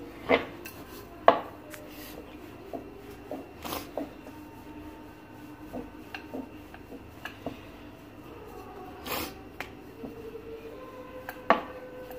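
Wooden rolling pin rolling out puri dough on a wooden chakla board: a low rubbing sound of the pin passing over the dough, with a handful of sharp wooden knocks as the pin and board bump.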